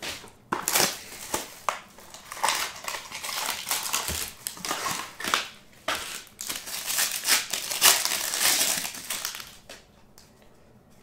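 Foil wrapper around a pack of Topps Triple Threads baseball cards being torn open and crinkled in repeated crackling bursts, which stop near the end.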